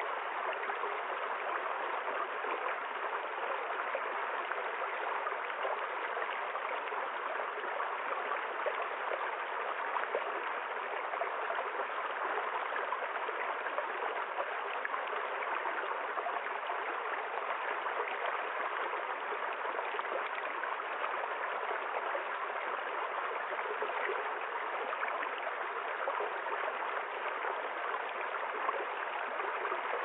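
Small stream flowing over rocks into a pool: a steady, even rush of running water.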